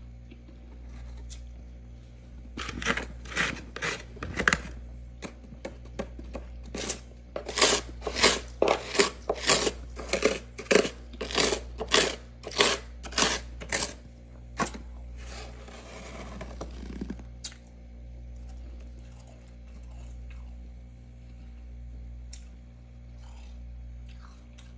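Fingers scraping and crunching thick frost off a freezer wall: a run of sharp, crunchy scrapes about two a second for some twelve seconds, then a softer crumbling rustle. A steady low hum runs underneath.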